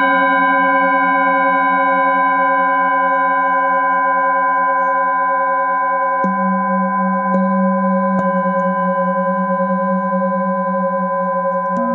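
Metal singing bowls ringing, several long tones overlapping with a slow wavering beat. A few light mallet strikes add fresh tones about six, seven and eight seconds in, with a deeper bowl sounding from about six seconds on.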